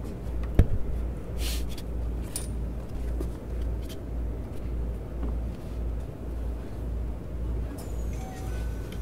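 Cab-end interior of a Keikyu New 1000 series train standing at a station: a steady low hum with a slow pulsing beat. A sharp click comes about half a second in, and a few short tones sound near the end.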